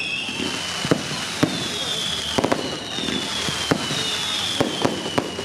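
Fireworks display: a rapid, irregular run of sharp bangs from bursting shells over a steady hiss, with high whistles gliding down in pitch several times.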